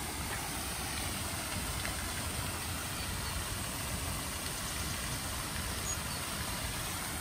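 Steady hiss of a pond fountain's jet spraying and splashing back onto the water, over a low rumble.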